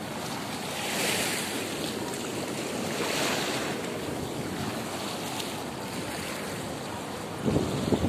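Shallow sea water washing over a flat reef, a steady rush that swells about a second in and again about three seconds in. Wind buffets the microphone near the end.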